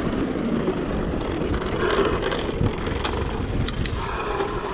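Mountain bike rolling down a dirt downhill trail: a steady rush of wind over the microphone with tyre and trail noise, and a few sharp clicks and rattles from the bike about three and a half seconds in.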